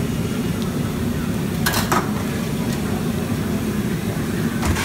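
Metal spatula and ladle scraping and clanking in a steel wok while stir-frying noodles: a quick pair of strokes about two seconds in and another near the end. Underneath is a steady low roar from the wok's gas burner.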